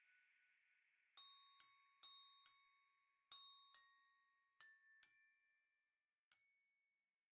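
Faint background music: a slow melody of struck, bell-like notes, about nine of them, each ringing out and fading. The last note comes near the end before the music stops.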